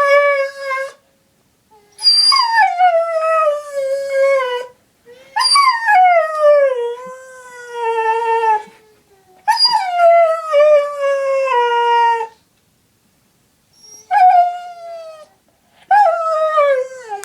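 Husky howling: a string of about five long howls, each starting high and sliding down in pitch, with short breaks between them.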